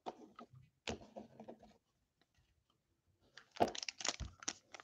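A few light clicks of trading cards being tapped and set down, then, after a short pause, the plastic wrapper of a trading-card pack crinkling loudly in the hands as it is picked up to be opened, about three and a half seconds in.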